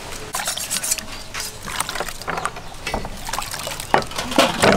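Hands kneading and squeezing wet grated coconut in water in a metal bowl, giving an irregular wet squelching and splashing.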